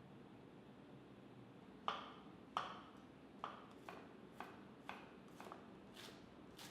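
Knife slicing on a cutting board: a run of about nine sharp knocks, roughly two a second, each ringing briefly, starting about two seconds in.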